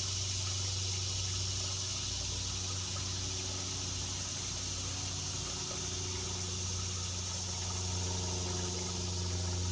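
A steady low motor hum over an even rushing hiss.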